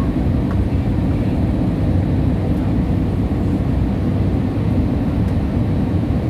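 Steady low roar of an airliner cabin in flight: jet engines and rushing air heard from inside the passenger cabin, even and unbroken.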